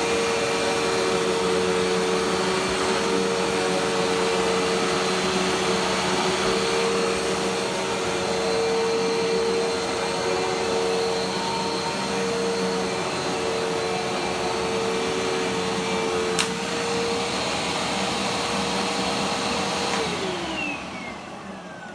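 Dirt Devil Dash vacuum cleaner running steadily with a constant motor whine, with one sharp click about three quarters of the way through. Near the end it is switched off and the motor winds down, its whine falling in pitch as it fades.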